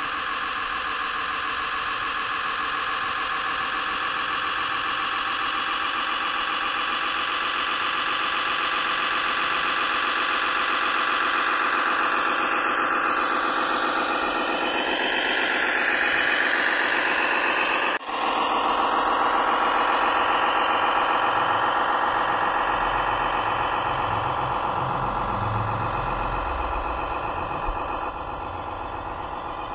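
Simulated diesel engine sound from an RC construction model's sound unit, running steadily with a rise in revs toward the middle. It cuts out for an instant about two-thirds of the way through.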